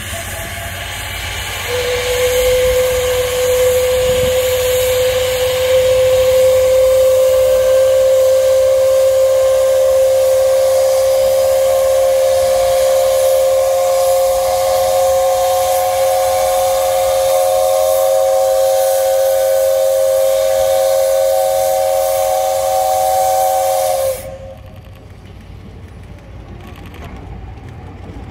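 Steam whistle of JNR Class 8620 steam locomotive No. 8630 blowing one long, steady blast of about twenty seconds. A hiss of steam leads in, the note starts about two seconds in and gains higher tones a few seconds later, and it cuts off sharply near the end.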